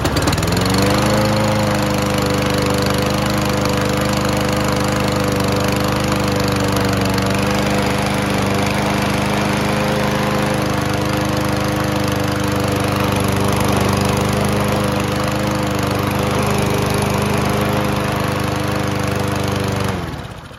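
Kohler single-cylinder engine on a Toro Recycler lawn mower catching off the pull cord, running steadily at constant speed, then shutting off and winding down near the end. It starts and keeps running once the stale fuel is drawn out of the carburettor bowl and fresh fuel comes in, as the owner takes it.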